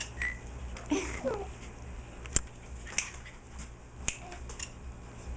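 Three sharp clicks or snaps in the second half, the first the loudest, with a baby's brief coo about a second in.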